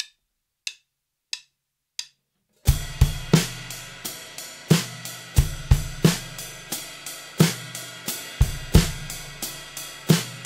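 Four drumstick clicks count in, then a Gretsch drum kit plays a steady groove: a cymbal ostinato with the hi-hat pedal closing on every quarter note, while the bass drum plays pairs of eighth notes moved through the bar.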